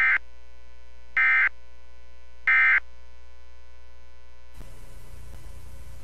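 Emergency Alert System end-of-message signal: three short bursts of SAME digital data tones, about 1.3 s apart, closing the Required Monthly Test. A steady mains hum runs underneath, and a faint hiss comes in about four and a half seconds in.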